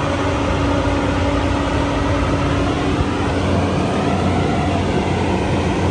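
Building's standby generator running with a loud, steady drone and a low hum.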